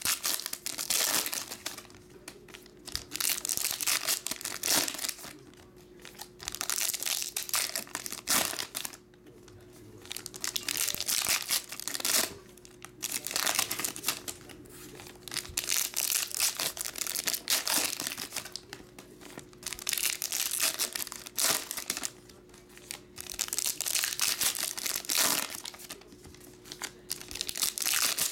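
Foil wrappers of 2021 Topps Star Wars Chrome Legacy card packs being torn open and crinkled by hand, in repeated bursts of crackling a few seconds apart.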